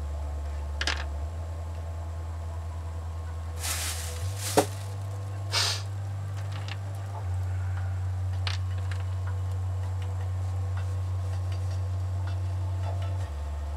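A few sharp clicks and knocks as wax crayons are put down and picked up on the table, the loudest a cluster about four to five seconds in. Under them runs a low droning bass that steps to a new pitch every few seconds.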